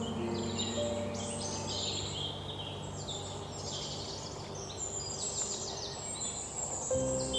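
Birds singing: repeated chirps and quick runs of descending trill notes, overlapping one another. Soft instrumental music fades under them and comes back in near the end.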